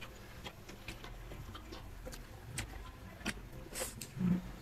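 Close-up mouth sounds of a person eating: chewing with small wet clicks and smacks at an irregular pace, and a sharper crackle about four seconds in.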